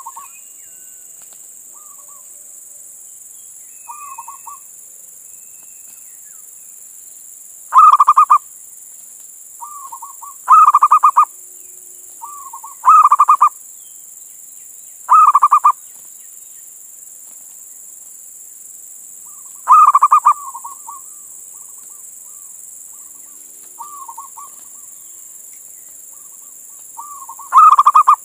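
Male zebra dove (perkutut) cooing: loud, rapid rolling coo phrases repeated every few seconds, with softer short coos in between. A steady high hiss runs underneath.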